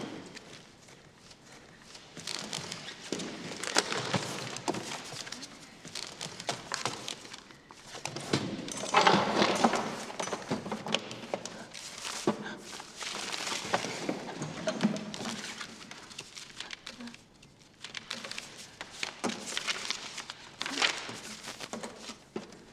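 Someone rummaging through a wooden desk: papers rustling and being shuffled, with scattered knocks and clicks of drawers and boxes being handled.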